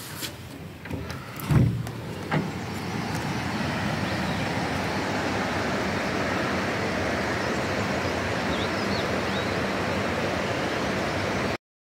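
Two short knocks in the first couple of seconds, the louder about one and a half seconds in, then a steady rushing outdoor noise with a few faint high chirps near the end; the sound cuts off abruptly just before the end.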